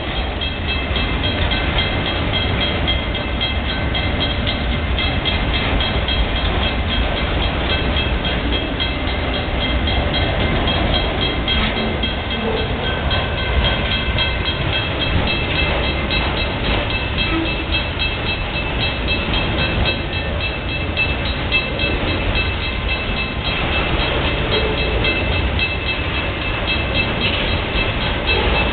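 Freight train of autorack cars rolling steadily past: a constant low rumble of wheels on rail. A grade-crossing warning bell rings over it in a steady repeated ring.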